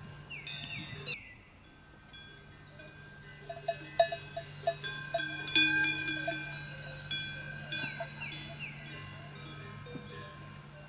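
Livestock bells ringing irregularly, several tones overlapping, with short falling calls twice, once near the start and again about eight seconds in.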